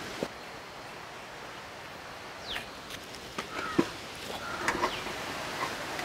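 Quiet outdoor ambience with scattered short bird chirps, some sweeping down in pitch, from about halfway through, and a few light knocks.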